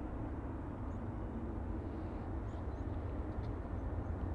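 Steady low rumble of jet airliner engines, slowly growing a little louder.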